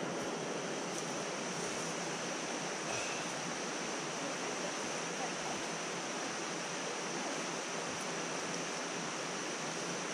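Steady, even rushing noise of the outdoors, unchanging throughout, with a faint thin high whine running through it.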